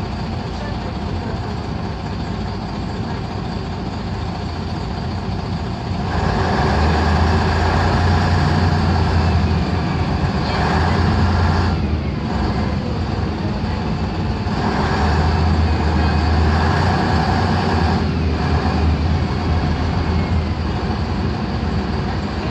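Interior of a LiAZ-5256.30 city bus on the move: its YaMZ-236 V6 diesel running under load with a steady low drone. The drone grows louder about a quarter of the way in, drops briefly about halfway through, then swells again before easing off.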